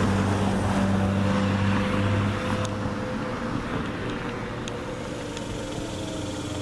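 Distant American Signal Tempest T-128 outdoor warning sirens sounding a steady tone for the monthly noon test. A louder low hum drops away a little over two seconds in.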